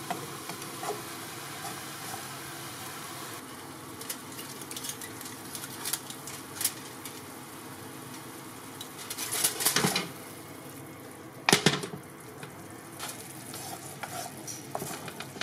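Soy sauce and sugar glaze bubbling and sizzling in a wok around small gobies as it reduces and thickens, stirred with a wooden spatula. Light clicks and scrapes of the spatula on the pan, with a few louder scrapes about two-thirds of the way through.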